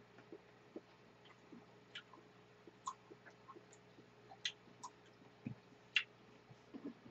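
Faint, scattered small clicks and smacks of two people eating ice cream with spoons from parfait glasses.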